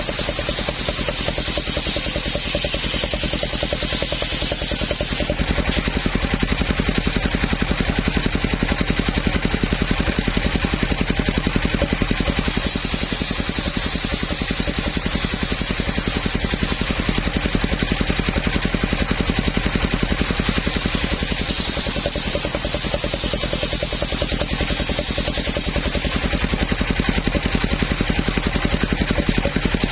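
Homemade circular sawmill running with a steady machine drone while sawing a coconut trunk. A higher hissing cutting sound comes and goes three times: at the start, around the middle, and again in the last third.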